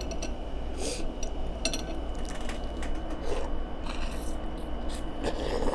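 Close-miked eating sounds from a sauce-covered seafood boil: wet mouth noises as seafood is bitten, sucked and chewed, with scattered small clicks and scratchy rubbing.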